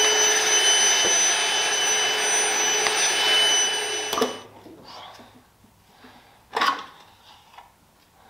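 Milwaukee wet/dry shop vacuum running steadily, then switched off about four seconds in. After it, light handling sounds on the engine block and one sharp knock.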